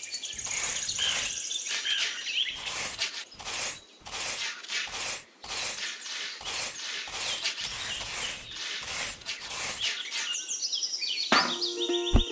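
A small trowel scraping and stirring wet cement mix on a wooden board, in short strokes about twice a second, with birds chirping in the background. Music comes in near the end.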